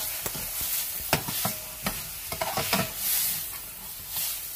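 Chicken, carrots and peas sizzling as they stir-fry in oil in a stainless steel pan, with a metal spatula scraping and clinking against the pan several times as it stirs.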